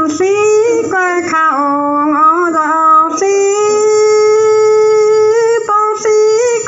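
A high solo voice singing a Dao pả dung folk song without accompaniment, in long drawn-out notes that bend and slide in pitch, with brief breaks between phrases.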